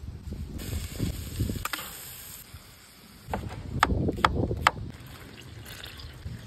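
Rabbit pieces going into a hot skillet of fat with a brief sizzle, then a knife chopping red onion on a plastic cutting board: about four sharp knocks a little over three seconds in, over a low rumbling noise.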